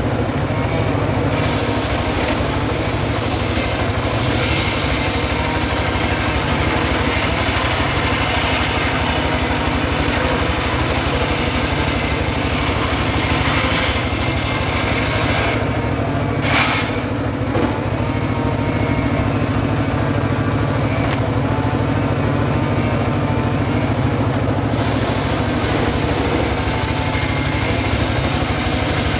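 Engine of a homemade mobile circular-saw rig running steadily, with a higher hiss that drops away for several seconds in the middle and comes back near the end.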